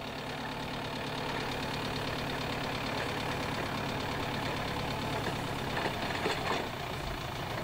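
An old farm tractor's diesel engine idling steadily, with a brief louder patch about six seconds in.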